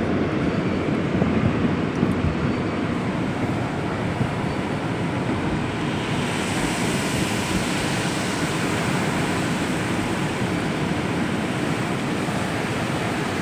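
Automatic car wash spraying water over the car, heard from inside the cabin as a steady rushing wash against the glass and body; a brighter hiss joins about six seconds in as water sheets across the windshield.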